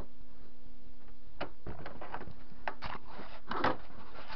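Scattered light knocks and scrapes of thick steel blocks being handled and set down on a wooden workbench, most of them in the second half, over a faint steady hum.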